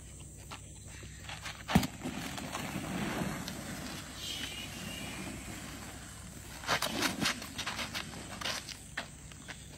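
Scuffing and scraping on a dirt road: footsteps and a king cobra's body dragging over the ground as it is handled. A sharp knock comes about two seconds in, and a quick run of clicks about seven seconds in.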